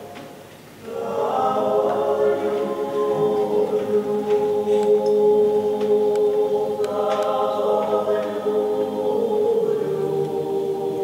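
A choir singing slow, long-held chords. One phrase fades away at the start and the next swells in about a second in.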